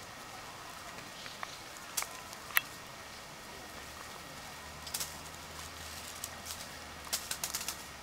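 Dry fallen leaves crackling in scattered sharp ticks as a sika deer lying in them shifts and grooms its flank. There are two clearer clicks about two seconds in, then clusters of crackles near the middle and toward the end.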